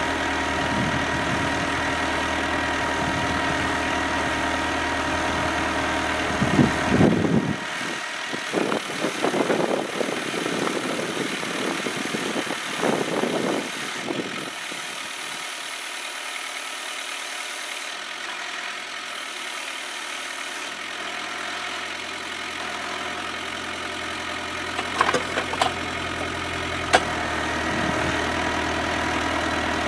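Kubota B7800 compact tractor's three-cylinder diesel running steadily, driving a PTO post-hole auger on the three-point hitch. About seven seconds in comes a stretch of loud, irregular churning as the auger works the soil and is lifted out of the hole. The engine then runs quieter for several seconds, with a few knocks near the end before the steady running returns.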